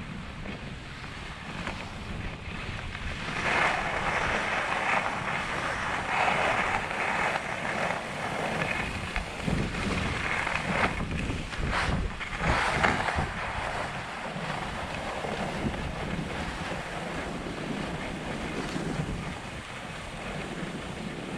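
Skis sliding and scraping over groomed, packed snow, a rushing hiss that grows louder in stretches between about 3 and 13 seconds in, with wind buffeting the microphone.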